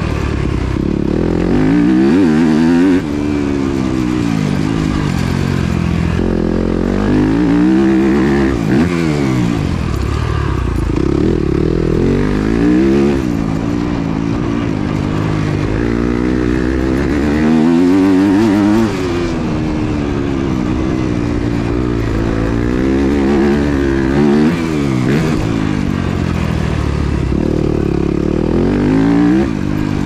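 Yamaha YZ250F's four-stroke single-cylinder engine under hard riding, revving up and dropping back many times as the rider opens and closes the throttle and shifts.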